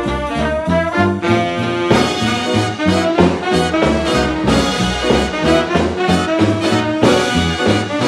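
Upbeat background music led by brass, with a steady bass beat.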